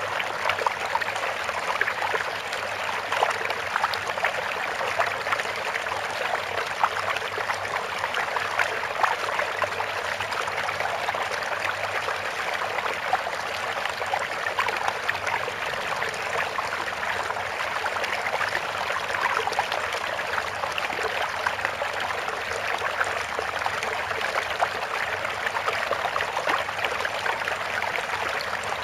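Steady running water like a babbling stream, an even trickling rush with little bass that keeps on without change.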